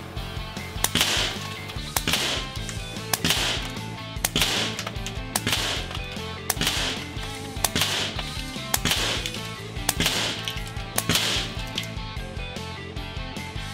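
Ten shots from a .25 Air Arms S510 XS regulated PCP air rifle fitted with a moderator, each a sharp crack with a short hiss, about one a second, over background music.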